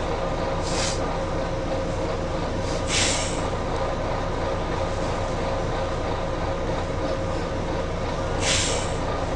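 Volvo B9TL bus's six-cylinder diesel engine running with a steady drone, with three short hisses of compressed air from the bus's air system. The loudest hisses come about three seconds in and near the end, and a weaker one comes just under a second in.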